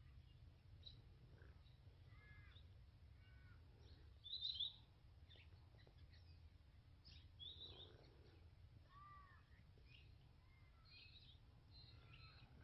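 Faint birds calling: short chirps and whistled calls scattered throughout, with one louder call about four seconds in, over a low steady rumble.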